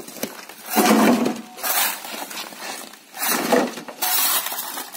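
A shovel scraping into a pile of broken bricks and rubble and tipping the pieces into a wheelbarrow, with the rubble clattering in several rough bursts, the loudest about a second in.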